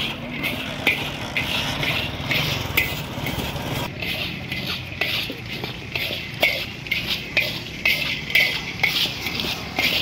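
A metal ladle scraping and stirring chickpeas through hot salt in a large iron wok, in repeated quick scraping strokes a few times a second: salt-roasting (parching) of chickpeas.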